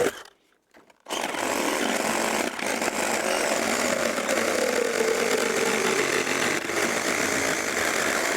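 Gas chainsaw running at high revs and cutting through the timber of a roof overhang, its engine note wavering steadily under load. It starts about a second in after a brief silence.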